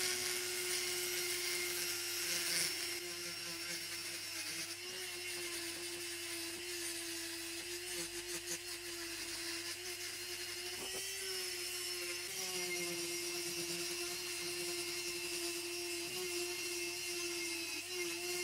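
Handheld rotary tool spinning a small abrasive sanding drum against the rough surface of a cast iron mortar: a steady motor whine with a scratchy grinding hiss, dipping slightly in pitch now and then.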